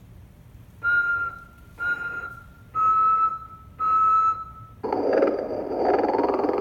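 Motionette animated sleeping Santa playing its recorded snore-and-whistle routine through its small speaker: four short breathy whistles, about one a second, the last two a little lower, then a long snore starting about five seconds in.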